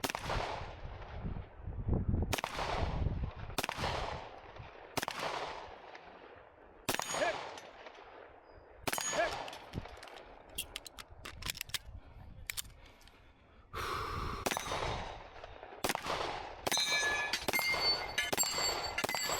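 Canik Mete SFT 9mm pistol firing single shots a second or two apart, each with a short echoing tail. After a pause with a few light clicks come two more shots, then metallic ringing and clinking near the end.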